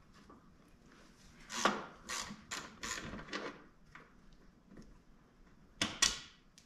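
Ratchet with a 13 mm socket working a bolt loose on the front of a stock Jeep TJ seat's frame: a run of about six short ratcheting strokes, then two sharp knocks near the end.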